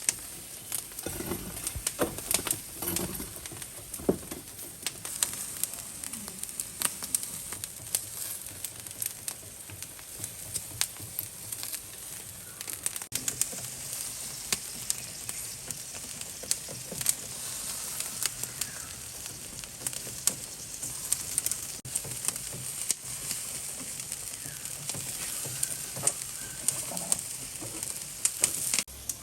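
Food sizzling over a barbecue grill: a steady hiss full of sharp crackles and pops.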